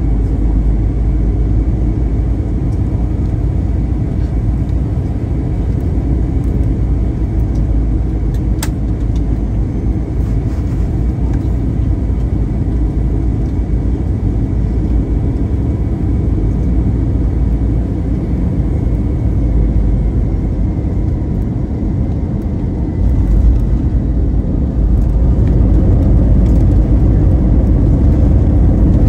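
Airbus A321 cabin noise from a window seat during landing: a steady, loud low rumble with one sharp click about nine seconds in. The rumble grows louder about 24 seconds in and stays up.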